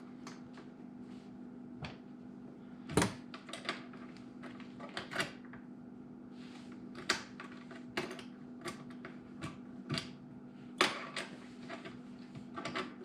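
Scattered clicks and knocks, the loudest about three seconds in and near eleven seconds, from working the leveling legs of a Kenmore dishwasher to raise it, over a steady low hum.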